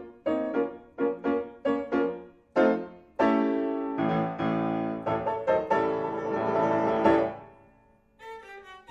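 Accompanying music: piano playing a quick run of short detached notes, then a held chord with violin swelling and dying away, and soft notes starting again near the end.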